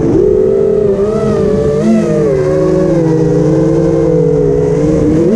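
Brushless motors and propellers of a Diatone Crusader GT2017 FPV racing quadcopter, heard from its onboard camera: a loud buzzing whine that dips in pitch at the start and rises slightly about one and two seconds in as the throttle changes, otherwise holding fairly steady.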